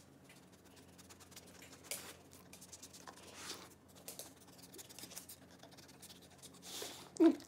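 Faint scratching and small clicks as a dog noses at and takes a treat from a hand, with a short sound falling in pitch near the end.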